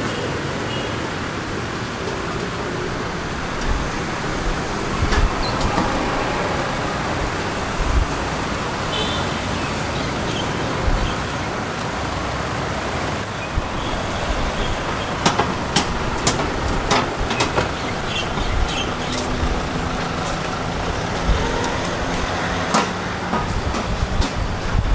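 Steady road traffic noise from vehicles on the road beside the walkway, with scattered short sharp clicks and knocks, most of them in the second half.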